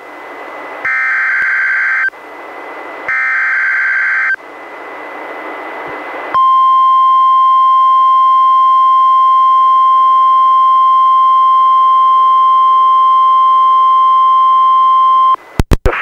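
NOAA Weather Radio emergency alert heard through a weather radio receiver: two harsh, buzzing two-pitch SAME digital header bursts of about a second each, separated by radio hiss, announcing a Special Marine Warning. After about two seconds of hiss comes the steady 1050-hertz warning alarm tone, held for about nine seconds and ending in a few quick clicks.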